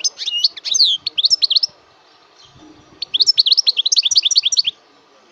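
A bird singing in two bursts of rapid, high chirps. The first comes at the start and the second about three seconds in, each lasting a second or two.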